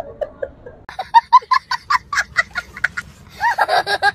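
High-pitched laughter. About a second in comes a quick run of short 'ha' sounds, about five a second, and near the end a louder, longer laugh.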